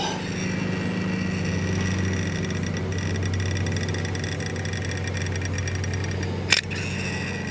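A lawnmower engine running steadily with an even drone. A single sharp click comes near the end.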